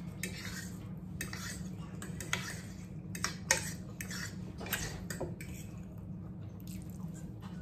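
Forks clinking and scraping on dinner plates in short, irregular strokes, with one sharper clink about three and a half seconds in, over a steady low hum.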